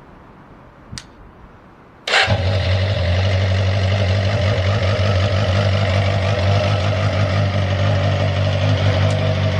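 Suzuki GSX-R400 inline-four engine started on the electric starter: a click about a second in, then just after two seconds it fires at the first press and settles straight into a steady idle.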